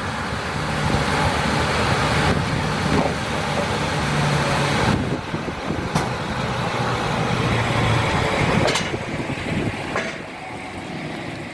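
Two-in-1 cant and multi-rip circular sawing machine running and sawing timber: a loud, steady noise of the saws cutting over the low hum of the electric motors. Two sharp knocks, at about six and nine seconds, then the sound drops somewhat near the end.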